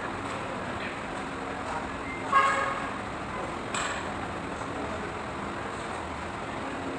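Steady background of traffic noise, with a short vehicle horn toot about two seconds in and a sharp click a second later.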